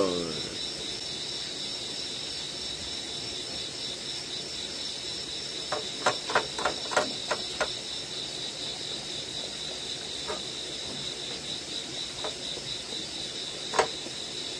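Crickets chirring steadily in the background. About six seconds in comes a quick run of wet clicks, with a few single ones later: a dog lapping broth from an aluminium ramen pot.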